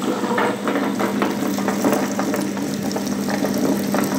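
Electric table-top wet grinder running steadily: a constant motor hum under the rough churning of its stone rollers grinding a wet coconut-and-chilli masala paste.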